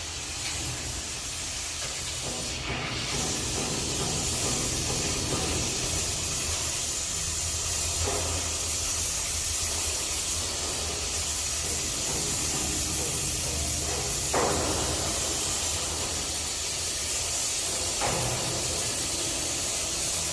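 Oxy-fuel welding torch flame, a steady hiss with a low rumble beneath it, growing a little louder over the first few seconds, with a few brief flares.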